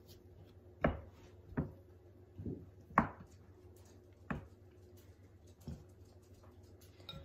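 Irregular dull knocks and thumps, about seven of them, the loudest about three seconds in, as sticky dumpling dough is worked with a silicone spatula and by hand in a stoneware mixing bowl and on a wooden board.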